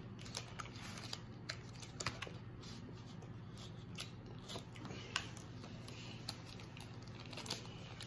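Faint, irregular clicks and crinkles of a plastic candy wrapper as fingers handle it and pick at it to open it.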